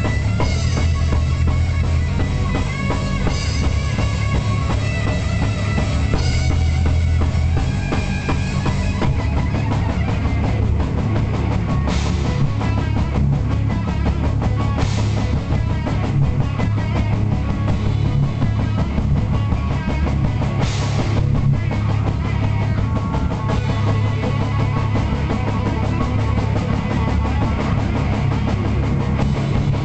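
Heavy metal band playing loudly: electric guitar through a Marshall amplifier over a pounding drum kit, with a few sharp crashes through the middle.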